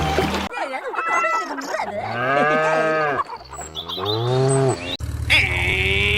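Cattle mooing: a few long moos that rise and fall in pitch, from about half a second to five seconds in, then background music comes back in.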